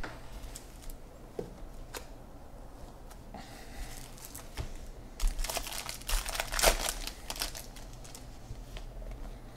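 Foil wrappers of 2015 Bowman baseball card packs crinkling and tearing as the packs are handled and ripped open, a dense crackling burst from about five seconds in lasting a couple of seconds, after a few light ticks.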